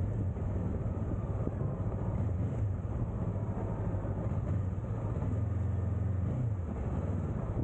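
Honda CB500X motorcycle's parallel-twin engine running at a steady speed while riding: a low, even drone with road and wind noise over it, easing off briefly about six seconds in.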